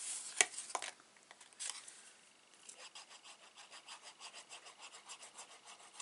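A sharp tap about half a second in, then rhythmic rubbing on card stock, about four strokes a second.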